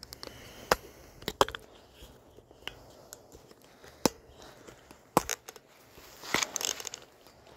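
Scattered sharp clicks and knocks, with a brief scraping rustle near the end, from a handlebar phone mount being handled and fitted.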